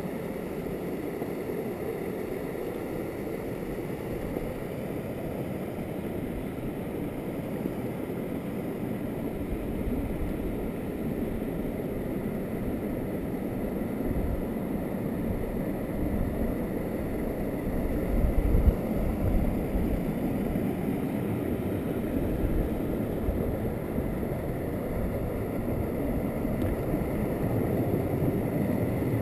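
Stream water rushing steadily over a small waterfall and shallow rock cascades. There is a brief louder low rumble on the microphone about two-thirds of the way through.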